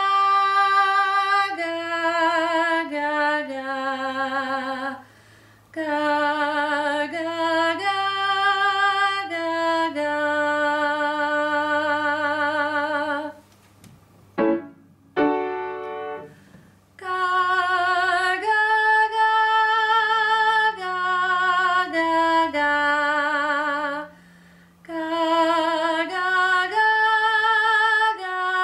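A woman singing a song unaccompanied, held notes with vibrato in phrases broken by short breaths. About halfway through she stops, a brief piano note sounds, and she sings on.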